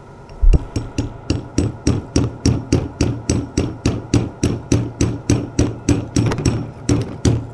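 Hammer tapping gently and steadily, about three to four blows a second, at the seal in a Vickers VTM42 power steering pump to drive the damaged seal out. The first blow, about half a second in, is the loudest.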